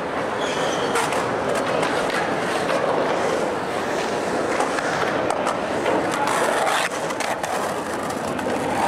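Skateboard rolling and carving over concrete wave ramps: a steady rolling rumble from the wheels on concrete, broken by a few sharp clacks.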